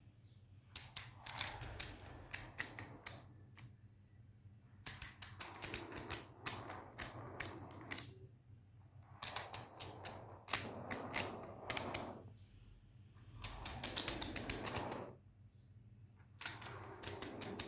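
Bursts of rapid, sharp clicks, five runs of a few seconds each with short pauses between them, over a soft rustle.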